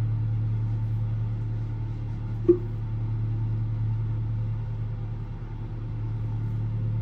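A steady low hum, with a single sharp click about two and a half seconds in.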